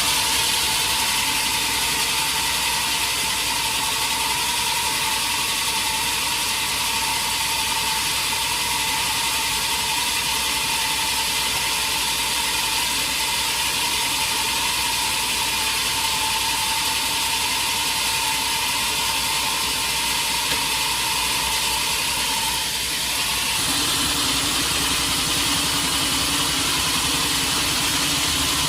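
Sawmill saw running through a teak log: a steady high whine over a hiss. About 23 seconds in the whine stops and a lower machine hum takes over.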